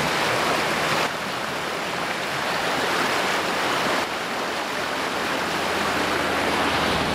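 Washford River in flood, fast brown water rushing and churning past a stone bridge with a steady, loud rush.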